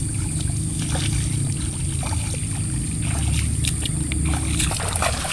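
Footsteps wading through shallow floodwater in a rice paddy, with light, scattered splashes over a steady low rumble.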